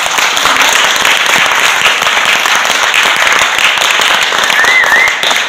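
Audience applauding loudly: dense clapping, with a short high cheer near the end.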